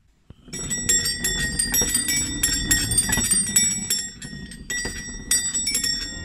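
Restored vintage push-along chime toy rolling, its metal bells struck over and over as the wheels turn, ringing from about half a second in over the low rumble of the wheels on the surface.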